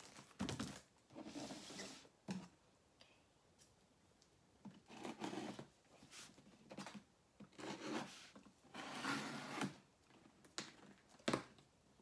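Cardboard shipping box being handled and opened: irregular scraping, rustling and tearing sounds, with a couple of sharp knocks.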